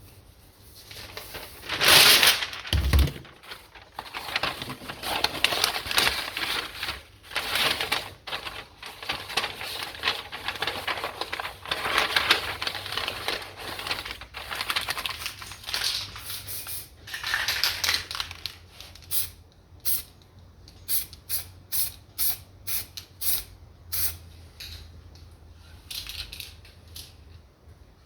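Aerosol can of lacquer primer spraying in long hissing passes. This is followed by a run of sharp clicks, about two a second, over the last third.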